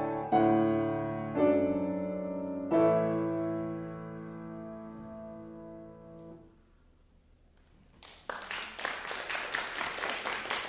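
Grand piano playing the final chords of a piece, three loud struck chords with the last one held and dying away over several seconds. After a short hush, audience applause breaks out about eight seconds in.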